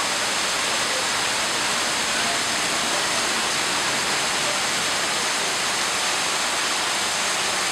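Heavy tropical rain pouring down steadily, with water gushing off rooftop drain spouts onto sandy ground: an even, unbroken rush of water.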